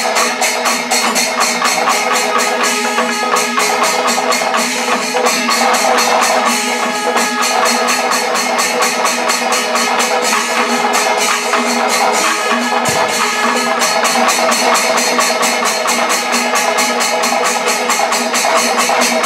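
Kerala Panchavadyam temple ensemble playing: timila drums struck over clashing ilathalam cymbals in a fast, even rhythm, with sustained tones held beneath.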